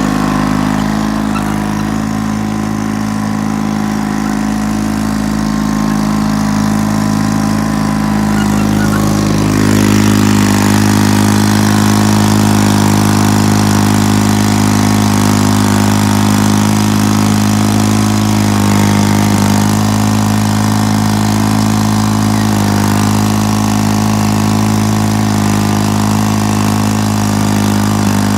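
John Deere 440 crawler tractor's General Motors diesel engine running steadily, a little louder from about ten seconds in.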